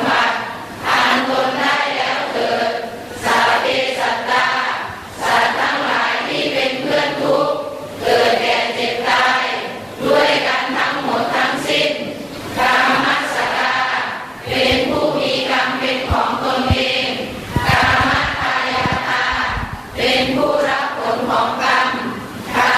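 A group of voices chanting Buddhist prayers in unison, phrase after phrase, with short breaks for breath between phrases. A few low thumps come about two-thirds of the way through.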